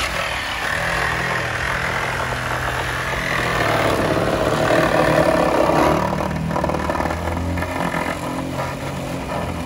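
Reciprocating saw cutting through the car body's sheet-metal rocker panel and floor, a steady motor running with the blade rasting through metal.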